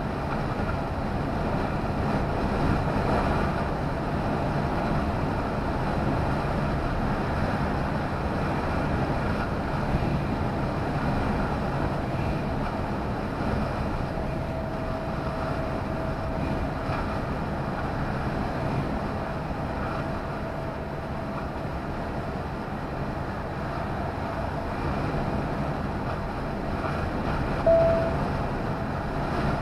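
Steady road and engine noise heard inside a lorry cab at motorway speed, with a short beep near the end.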